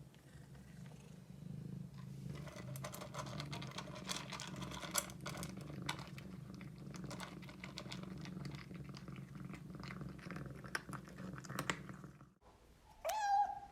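Domestic cat purring, a steady low pulsing hum, while eating, with many small clicks of chewing over it. The purring cuts off suddenly near the end, followed by a brief high tone that rises and then holds.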